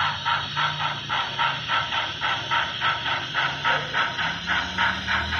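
Model train running on a layout: an even rhythmic beat of about four to five pulses a second over a low motor hum.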